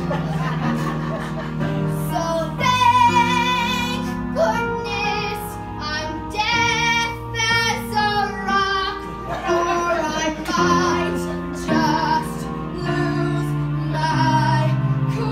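A musical-theatre song performed live: a voice holding long notes with vibrato over instrumental accompaniment with a steady bass line.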